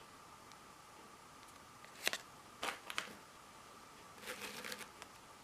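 Thin steel lock picks being handled: a few sharp light clicks about two to three seconds in, then a brief rattle of small clicks near the end, over a faint steady high hum.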